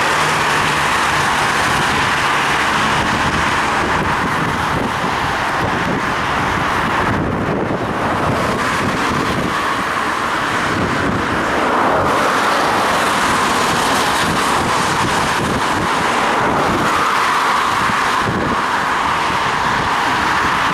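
Steady rushing noise of riding a bicycle through street traffic in the rain: wind on a head-mounted action camera's microphone and tyre hiss, with motor vehicles running nearby and a low engine hum during the first few seconds.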